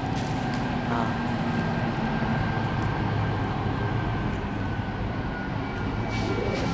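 SSR diesel locomotive hauling a freight train through the station on a far track: steady engine rumble and wheel noise, with a thin high squeal running over it.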